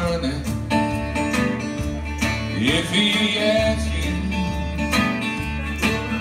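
Live acoustic blues: a strummed acoustic guitar with a harmonica wailing over it, its notes bending upward in a few rising slides.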